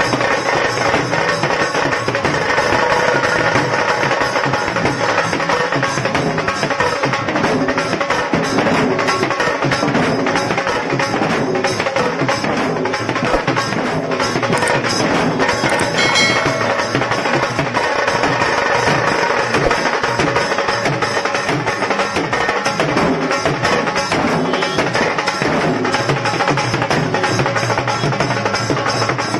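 A dhol tasha band playing loudly and without a break: several large double-headed dhol drums beaten with sticks, with a tasha drum rattling fast strokes over them.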